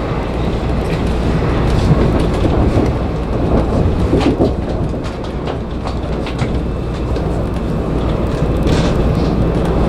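Shonan Monorail 5000-series suspended monorail car running between stations, heard from inside the cab: a steady rumble from its rubber tyres running inside the overhead track beam, with a few sharp clicks and knocks along the way.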